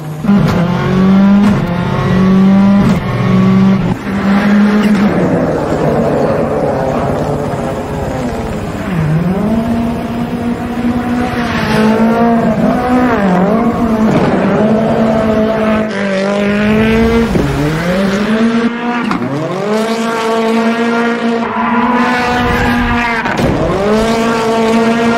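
Tyres squealing on tarmac for a long stretch, the pitch held steady and then dipping and recovering every few seconds, over engine noise.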